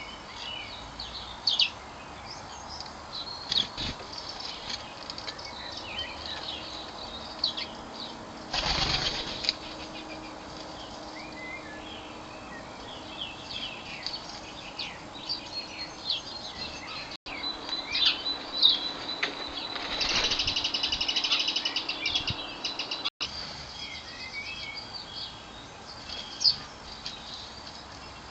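Garden birds chirping repeatedly at a bird table, with a short burst of wingbeats about nine seconds in and a rapid, rhythmic fluttering buzz for a couple of seconds around twenty seconds in.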